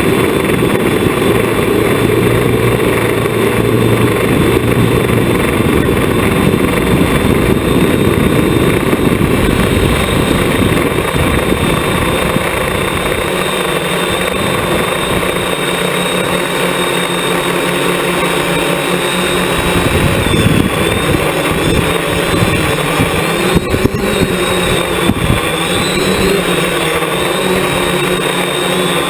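Hexacopter's six brushless electric motors and propellers whirring steadily in flight, heard from the craft's own onboard camera. The whine drifts slightly in pitch as the throttle changes, with a heavier low rumble in the first half.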